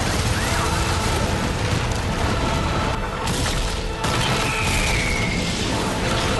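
Disaster-film sound effects: continuous heavy rumbling with booms and music mixed in, and a falling whine a little past the middle.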